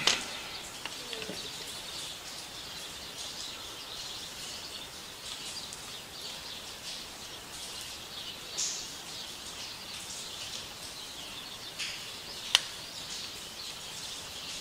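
Birds chirping steadily in the background, with two sharp clicks: one right at the start and a louder one about twelve and a half seconds in.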